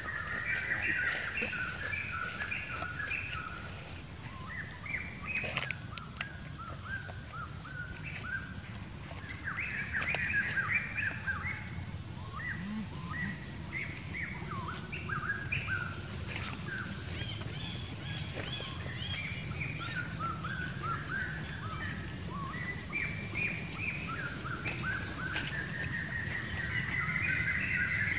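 Wild birds chirping in repeated bursts of short, quick chirps, over a steady low background hum of outdoor ambience.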